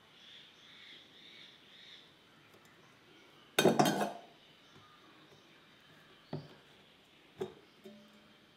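A metal table knife set down onto a dish, clattering in a quick cluster of clinks about three and a half seconds in. Two lighter knocks follow near the end as the solid disc of beeswax is lifted from the enamel pot.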